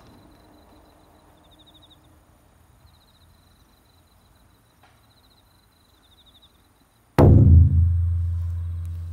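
Faint high chirping trills over quiet outdoor air. About seven seconds in, a single loud, deep drum-like boom strikes and rings on, slowly dying away.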